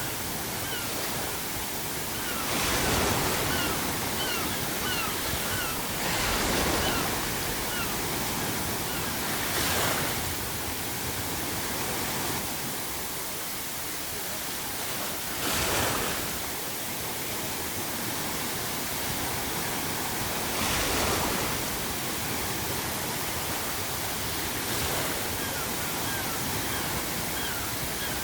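Ocean waves breaking on a shore every few seconds over a steady wash of surf. Seagulls call faintly in short runs of quick calls a few seconds in and again near the end.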